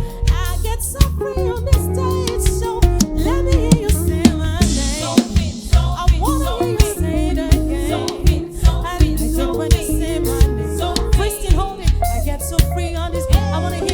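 Live band music with a drum-kit beat: regular sharp drum hits under sustained, bending melodic lines.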